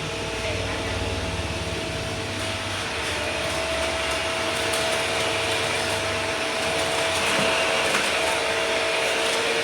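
Vacuum cleaner running steadily: a continuous airy rush with a steady two-note motor whine. A lower rumble fades out about six seconds in, and the sound grows a little louder toward the end.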